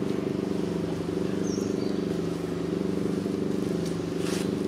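Steady engine hum, several low tones held level throughout, with a brief high chirp about a second and a half in and a short hiss near the end.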